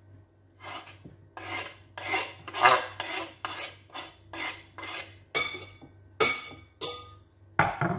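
A kitchen knife scraping chopped dill off a wooden cutting board into a glass salad bowl, in about a dozen quick strokes, with a single knock near the end.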